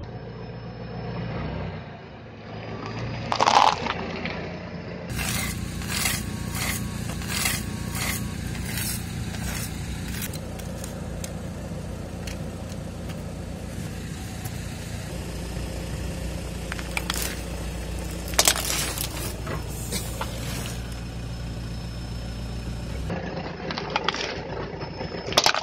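Car engine running at low speed, with sharp cracks and clicks of plastic toys snapping and crunching under its tyre. Two loud cracks stand out, one a few seconds in and one past the middle.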